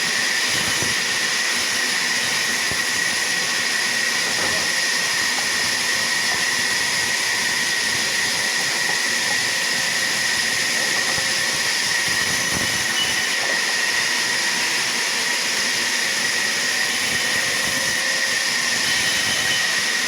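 Sawmill machinery running steadily, a constant high whine over a dense hiss that holds unchanged throughout.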